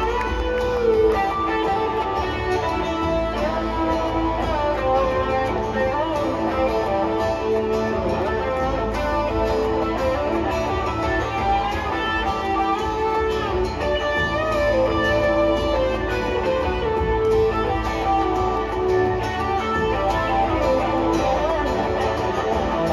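Live rock band playing: electric and acoustic guitars with keyboards, the lead line sliding and bending between notes.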